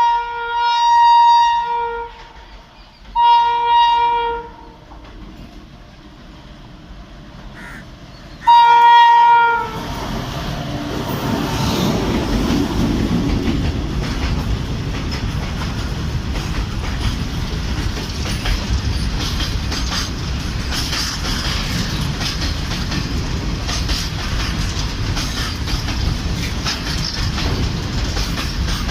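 Indian Railways WAG-9H electric locomotive sounding its horn in three blasts over the first ten seconds, the last one loudest. Then the freight train runs past, a steady loud rumble of wheels on rails.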